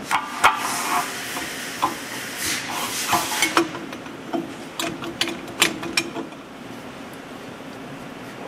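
Stainless steel agitator shaft tubes being slid together and fitted over a stainless mixing kettle: scattered metal clicks and knocks, with scraping and rubbing of steel on steel in the first few seconds, and a faint steady hum from about three seconds in.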